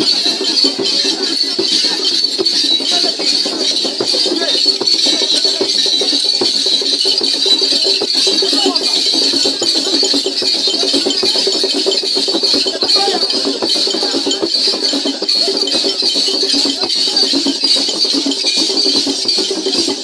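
Dance rattles and jingles shaken continuously in a dense clinking wash, with a crowd's voices underneath.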